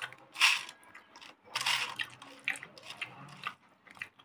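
Eating rice and meat curry by hand: fingers mixing and squishing the wet food on the plate, and chewing, in a few short separate bursts.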